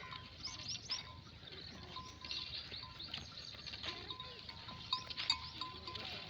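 Bells on a grazing flock of sheep clanking irregularly, with many small overlapping strikes.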